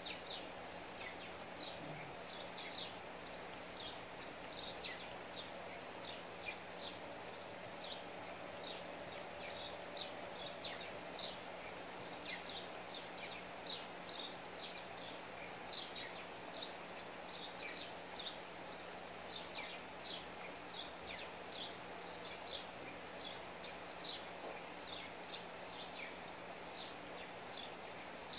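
Small birds chirping: many short, high chirps, one to three a second, over a faint steady outdoor background noise.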